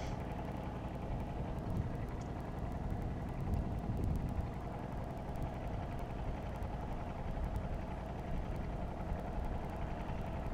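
A boat's engine running steadily, a low even drone.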